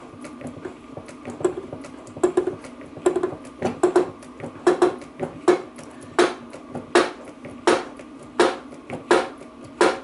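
Hydraulic shop press being pumped in steady strokes, a sharp click about every three-quarters of a second, as it presses a new bearing onto a rear differential carrier. A steady low hum runs underneath.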